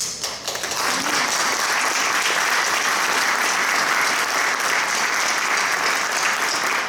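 A roomful of people applauding: steady clapping that builds over about the first second and then holds.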